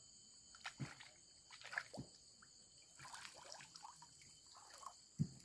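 Faint small splashes and drips of shallow water, a few separate ones, over a steady high-pitched chirring of night insects.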